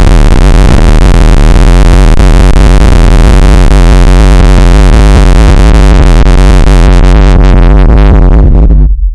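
Very loud, harsh electronic noise from a computer-made audio file: a dense wall of sound with heavy bass and no clear tune. Over the last couple of seconds the hiss at the top fades away, and then the sound cuts out for an instant near the end.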